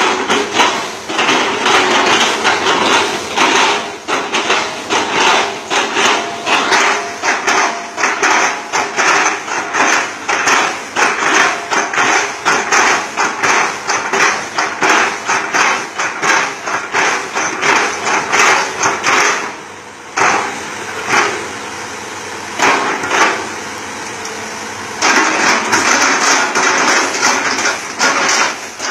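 Rapid, even knocking, about three strikes a second, as the Hitachi ZX200-5G excavator's bucket chops a felled oil palm trunk. The strikes pause for about five seconds past the middle, leaving a steadier, quieter machine sound, then resume.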